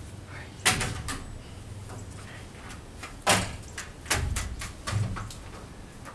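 Several sharp knocks on wood, the loudest about halfway through: nails being driven into the wooden roof trusses.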